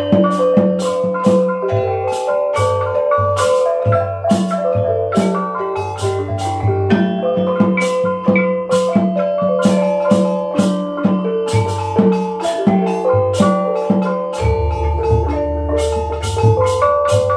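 Javanese-Osing gamelan ensemble playing: rows of bronze kettle gongs struck in a quick, even stream of ringing notes over regular low beats of a kendang barrel drum. A deep ringing low note sets in about three seconds before the end.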